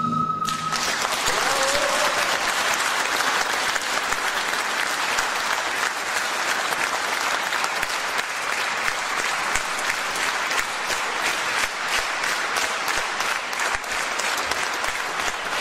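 Audience applauding steadily, with many hands clapping. In the first second the last held note of a pan flute dies away as the clapping starts.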